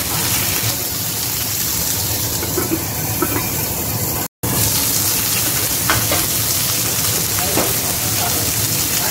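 Beef steak sizzling steadily in hot oil in a frying pan as it sears, with a brief dropout about four seconds in.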